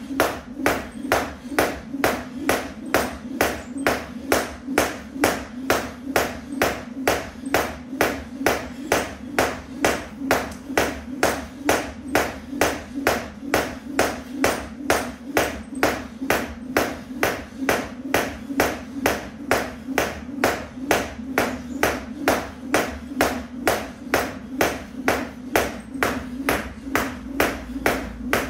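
Skipping rope slapping a rubber exercise mat at a steady pace, about two sharp slaps a second, each with the thud of feet landing.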